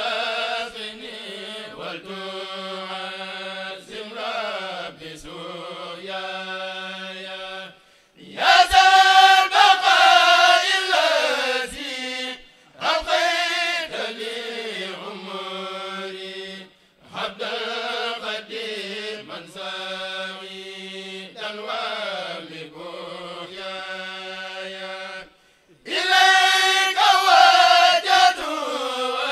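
A Senegalese Mouride kurel of men chanting a khassida in Arabic, unaccompanied, over a PA, in phrases broken by short pauses. The chanting swells louder about eight seconds in and again near the end.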